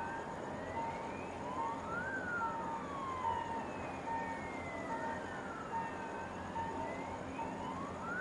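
Sirens wailing: several overlapping tones that each rise and fall slowly over a few seconds, with a short tone beeping on and off at a steady pace, over a steady hiss.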